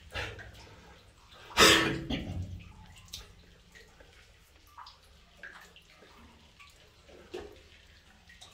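Water sloshing and splashing as a person wades through a flooded mine tunnel, with one louder splash about one and a half seconds in, then small drips and ripples.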